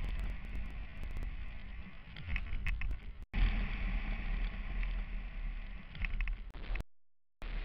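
Wind rush and engine rumble from a motorcycle at road speed, heard through a bike-mounted camera, with a few light ticks. The sound drops out for an instant about three seconds in and cuts out completely for a moment near the end.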